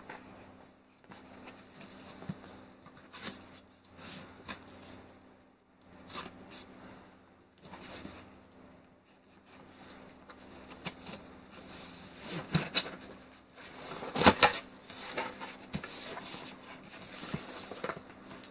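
Hands working a taped cardboard shipping box: a blade scraping along the packing tape, cardboard rubbing, and the flaps being pulled open. A few sharper rips and knocks come about three-quarters of the way through.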